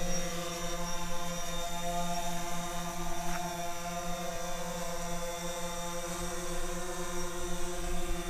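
DJI Phantom 4 quadcopter's four propellers and motors in flight, a steady buzzing hum holding one pitch.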